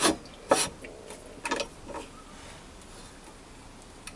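A few light clicks and knocks from the metal parts of an old drill stand as the tapping fixture's head and clamp handle are handled, all within the first two seconds.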